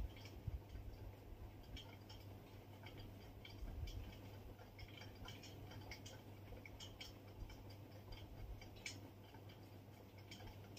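Faint, irregular soft clicks of a tabby cat's mouth working at a cloth, mouthing and suckling on it.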